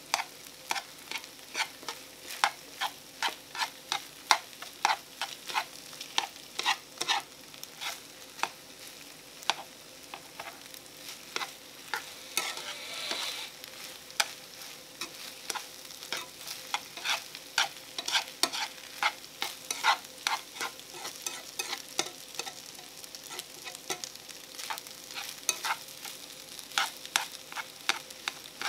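Metal chopsticks stirring egg fried rice in a small frying pan, clicking and scraping against the pan a couple of times a second over a steady frying sizzle.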